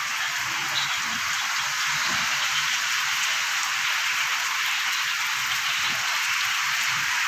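Heavy rain falling, a steady, even hiss throughout.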